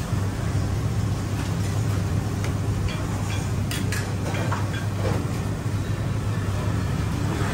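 Steady low hum and rumble of background noise, with a few light clicks of a metal spoon and fork against a ceramic plate, two close together about four seconds in.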